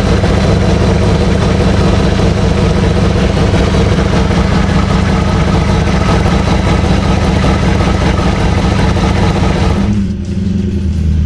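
BMW M60B40 4.0-litre V8 running at a steady speed, heard loud and open with the bonnet up. About ten seconds in it changes abruptly to the duller engine sound heard from inside the car's cabin.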